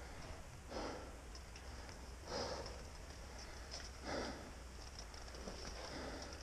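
A person breathing hard close to the microphone: four breaths about every second and a half to two seconds, after the exertion of lifting a bike on the trail.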